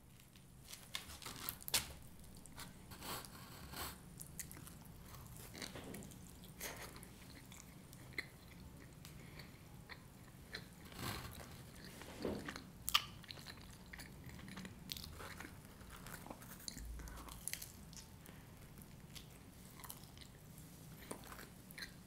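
Close-up eating sounds of pizza being bitten and chewed, with crunching and irregular wet mouth clicks.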